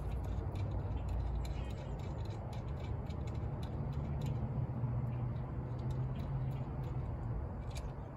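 Faint small clicks and scrapes of a coaxial cable's connector being fitted onto a handheld satellite finder, over a steady low rumble.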